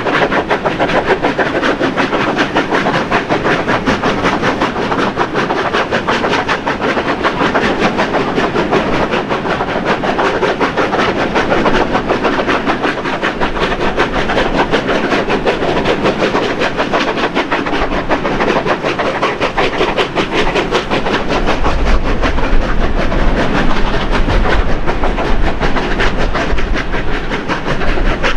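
Double-headed steam locomotives 3016 and 3642 working hard with a fast, steady exhaust beat, heard from an open carriage window together with the carriage wheels clicking over the rails. A deeper rumble comes up in the last few seconds.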